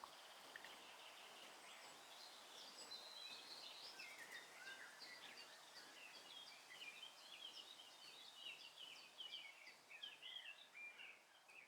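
Faint chirping of small birds: many short, quick high calls, busier in the second half, cutting off just before the end.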